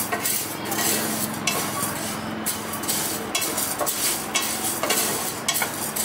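Toor, chana and urad dal dry-roasting in a pan on low flame, stirred with a wooden spatula: the dry grains rattle and scrape against the pan in repeated sweeps, about one a second.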